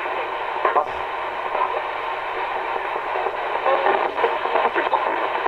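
Ghost box: a Radio Shack 20-125 radio sweeping the FM band, heard through a guitar amp. Steady static is chopped by brief snippets of broadcast voices and sounds as stations flick past, with a few short clicks.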